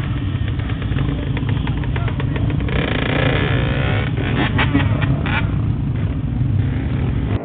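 Motorcycle engines running close by with a steady low rumble, and a burst of crowd voices a little before the middle.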